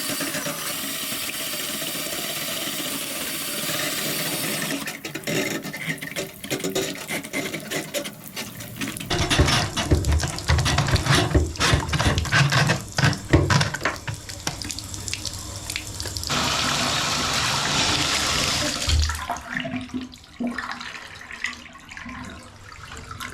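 Water running from a bathtub faucet, broken up in the middle by an irregular run of knocks and clatter.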